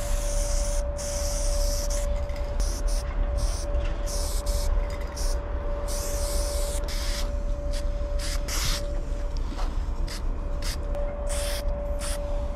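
Aerosol spray paint can hissing in repeated short bursts, some about a second long, as white lines are sprayed onto a wall. A steady hum and a low rumble run underneath.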